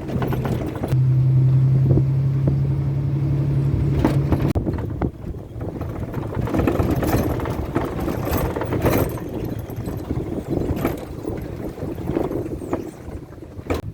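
A car running on a road: engine and road rumble, with a steady low hum for the first few seconds, then a rougher, uneven rumble with scattered knocks.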